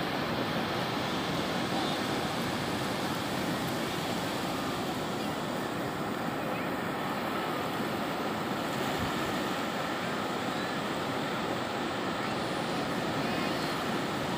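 Steady rush of ocean surf breaking and washing onto a sandy beach.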